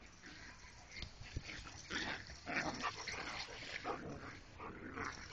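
Dogs playing and giving short yips and whines, several in quick succession from about two seconds in.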